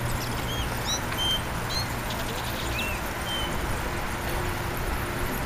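Steady wind and road rumble from riding a bicycle in a group, with a few short high chirps in the first three seconds or so.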